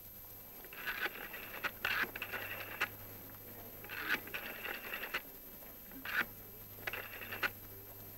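Rotary telephone dial being dialed: the finger wheel is turned and runs back with a rapid clicking whir, several digits one after another with short pauses between.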